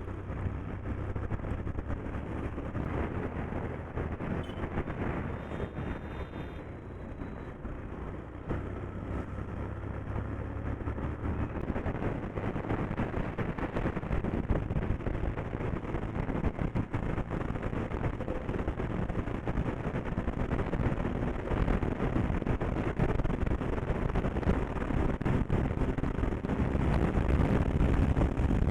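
Bajaj Pulsar 125 motorcycle's single-cylinder engine running while riding, with wind and road noise, growing gradually louder as the bike picks up speed.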